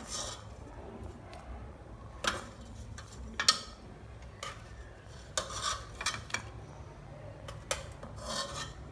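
Metal spoon scraping and knocking against the inside of a metal cooking pot in a series of short, irregular scrapes and clinks, the loudest about three and a half seconds in.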